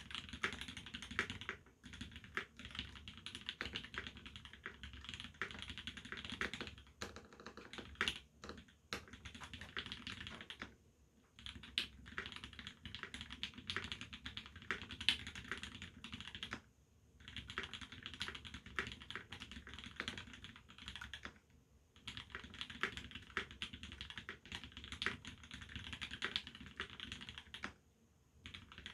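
Typing on a TX87se mechanical keyboard with a brass plate, lubed C³ Tangerine R2 linear switches and GMK keycaps. Keystrokes come in fast runs broken by a few short pauses, with slower single strikes about a third of the way in.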